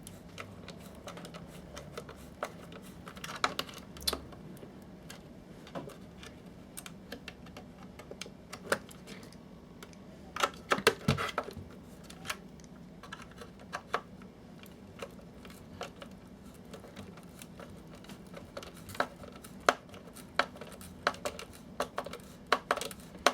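Screwdriver tip clicking and scraping against a recessed screw and the plastic casing of a projector, in irregular light clicks with a denser run about ten seconds in and again near the end. The tip is rubbing against the screw rather than gripping it, and the screw is being pushed further into its hole.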